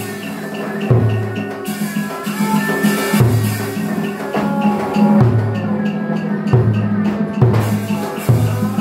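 Tuồng opera ensemble playing: a low drum beats roughly once a second under lighter, quicker percussion and a wavering melodic line.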